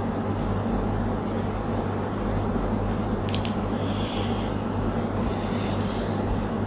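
Room tone: a steady low electrical hum under an even hiss, with one brief sharp click about three seconds in.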